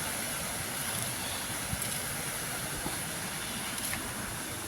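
A steady rushing noise, with a few faint ticks.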